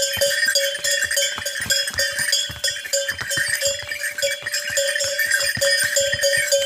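Bells on a trekking horse's harness jingling steadily as it walks, ringing in a rapid, uneven shimmer with soft knocks of steps on the stone path underneath.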